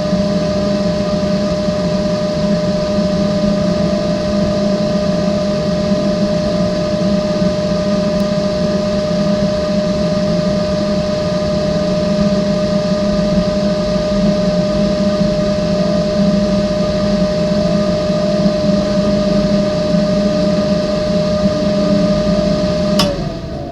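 Battery-powered 5-volt fan of a homemade thermostat-controlled cooler running steadily with a constant whine over a low hum. It cuts off suddenly near the end.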